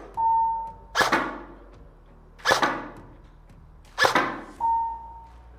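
E&L AK74MN airsoft electric rifle firing single shots on semi-auto, about one every second and a half. An electronic reaction target answers twice with a steady half-second beep, once at the start and once about four and a half seconds in.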